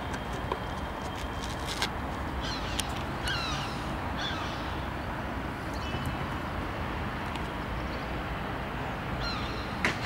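Gulls calling, a few short cries that slide downward, in a cluster a few seconds in and again near the end, over steady background noise.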